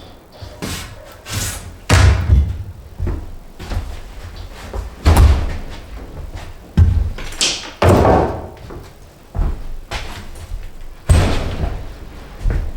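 Wooden prop boards being knocked loose from under a ceiling and dropped, a series of heavy thuds a second or two apart with lighter knocks and wood scraping between.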